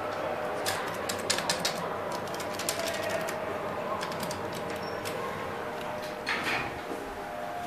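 Innovation Bruiser pushbuttons in a Schindler elevator car clicking as they are pressed several times over steady background noise. About six seconds in, the elevator doors slide shut with a short rush of noise.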